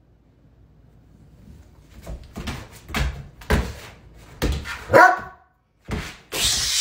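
A Doberman barking in a series of short barks, with a burst of hiss near the end.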